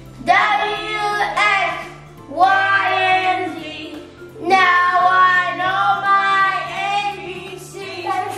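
A child singing a tune in four phrases over background music with a steady, stepping bass line.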